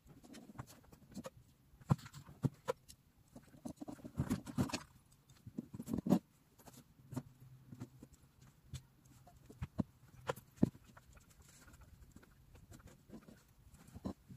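Table knife spreading peanut butter on a slice of bread: short rasping scrapes mixed with irregular sharp clicks and taps of the knife.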